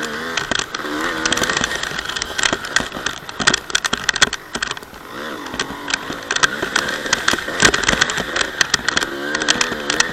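Honda CR250 single-cylinder two-stroke dirt bike engine running, its revs rising and falling, mixed with many sharp knocks and rattles; it drops off briefly about halfway through.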